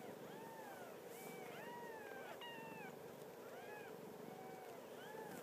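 Two-week-old kittens mewing: a string of faint, thin, high cries, each rising and falling, repeated every fraction of a second.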